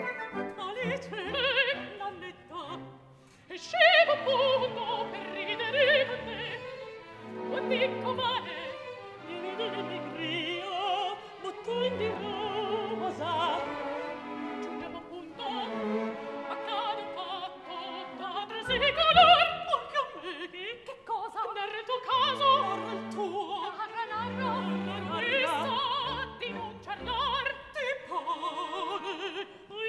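Women's voices singing a lively operatic passage with orchestra accompaniment.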